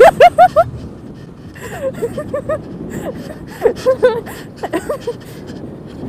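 A high-pitched voice close to the microphone gives four short bursts of quick, rising syllables, like breathless laughing, over a low rush of wind on the microphone.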